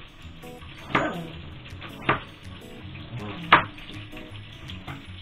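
Kitchen knife slicing an onion into half rings, knocking sharply on the cutting board three times, over a steady low hiss.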